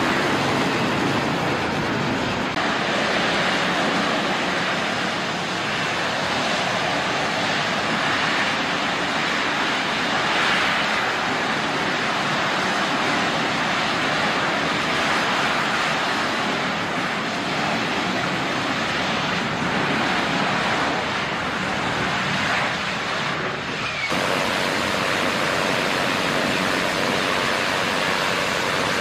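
AV-8B Harrier II jump jet's Rolls-Royce Pegasus turbofan running at hover power, a steady loud rushing jet noise as the aircraft hovers and lowers vertically toward the ship's deck.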